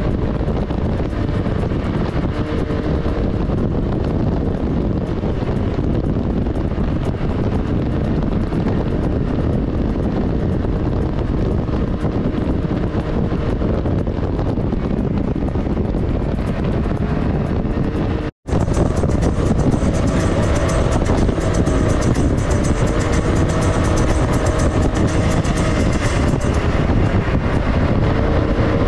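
Vehicle engine running while driving, its note slowly rising and falling, under heavy wind on the microphone. The sound breaks off for an instant about 18 seconds in, then carries on.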